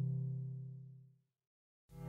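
Background music: a held sound fades out over about a second, there is a short silence, and the music starts again abruptly near the end.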